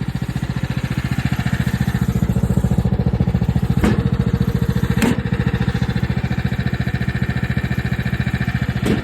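Riding lawn mower engine running steadily with an even pulse. Two sharp knocks come a little over a second apart midway, and another near the end.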